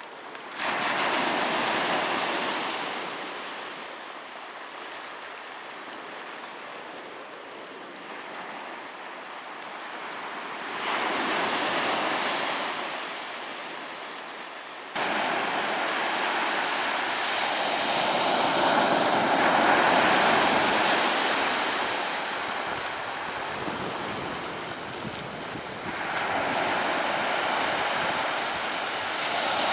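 Ocean waves breaking on a shore, a rushing wash that swells and ebbs every few seconds. Surges come about a second in, around eleven seconds in, and repeatedly through the second half, with a sudden jump in level about halfway through.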